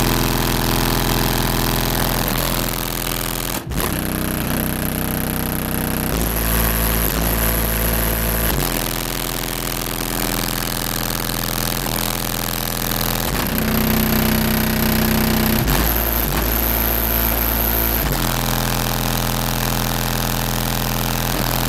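Car audio system with four 15-inch SSA subwoofers on 7000 W RMS playing at competition level: loud, held deep bass notes that step to a new pitch every few seconds, with a brief dropout about three and a half seconds in.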